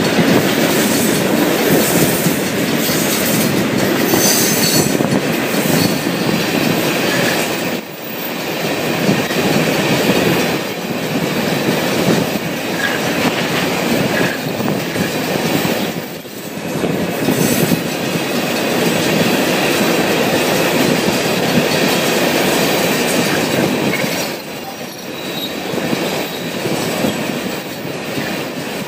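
Freight train cars rolling steadily past at close range: a continuous rumble and clatter of steel wheels on the rails, dipping briefly in loudness a few times as the cars go by.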